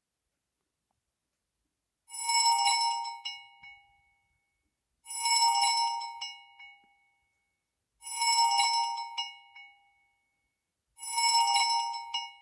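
A ZTE Overture 3 phone playing one of its built-in tones: a bell-like chime of several ringing pitches that fades away, repeated four times about every three seconds after a couple of seconds of silence.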